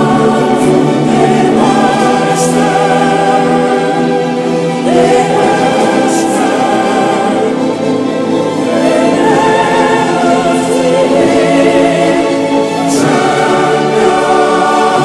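Choral background music: a choir singing held chords with vibrato, the chords changing about five seconds in and again near the end.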